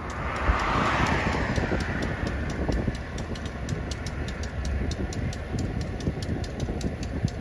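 Passenger train's low, steady rumble, with a burst of hiss in the first couple of seconds that fades away.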